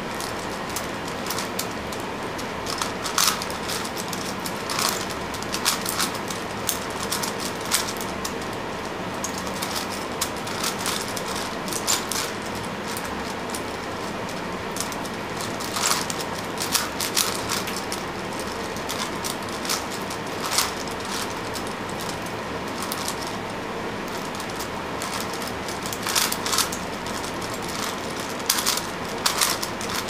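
Layers of a 5x5 Rubik's cube being turned by hand: irregular plastic clicks and clacks, now in quick runs, now single, with a few louder snaps, over a steady hiss.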